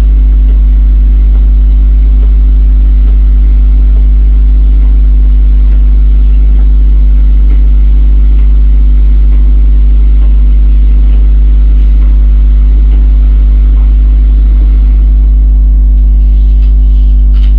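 Loud, steady electrical mains hum with a stack of evenly spaced overtones, unchanging in pitch and level.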